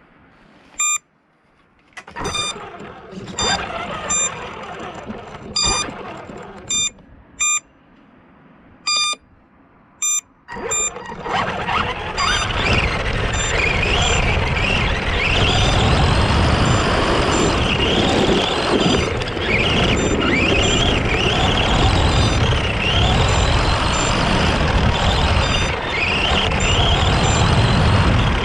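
Several short electronic beeps at uneven intervals. About ten seconds in, the Arrma Granite 4x4 RC truck sets off and drives continuously, its electric motor whining up and down with the throttle over loud tyre and ground noise.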